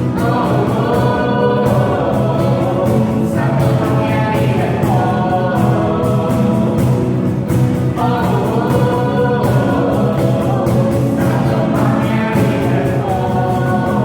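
Worship band and group of singers performing a Christian praise song, voices in several parts over steady instrumental backing.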